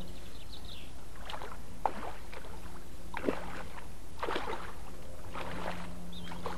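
Water splashing and sloshing at the water's edge in about six short bursts, with two sharp clicks among them.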